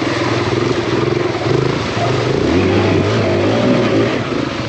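Kawasaki KLX140RF dirt bike's single-cylinder four-stroke engine running as it is ridden, the revs rising and falling, with the note dropping about halfway through.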